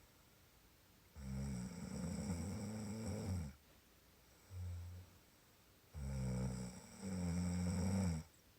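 Snoring in a slow rhythm: two long rasping snores, about a second and about six seconds in, with a short low breath out between them.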